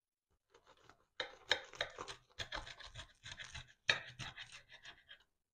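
Knife sawing through the crisp, sugar-topped crust of a baked puff-pastry apple strudel: a run of crackling, rasping strokes starting about a second in.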